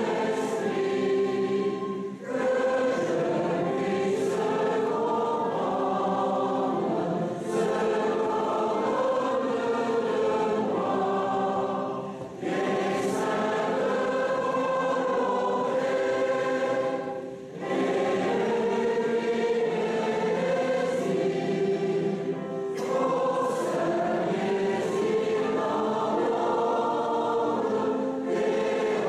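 Large mixed choir of men and women singing, in sustained phrases with short breaks between them.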